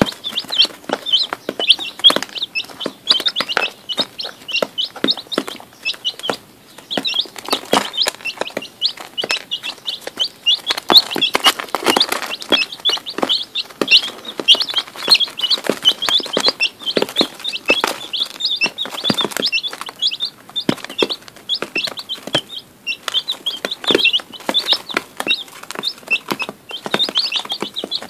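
A brood of day-old chicks peeping constantly, many short high-pitched peeps overlapping with no pause.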